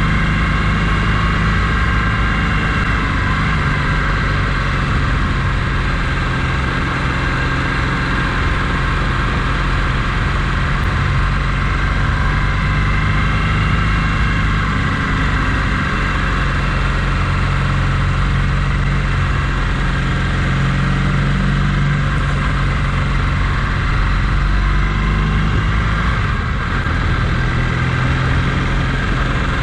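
A vehicle engine running steadily under way, with an even low hum and no change in pace.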